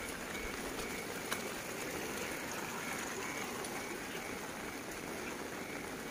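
Light rain falling steadily, an even hiss with no breaks, and a single faint click about a second in.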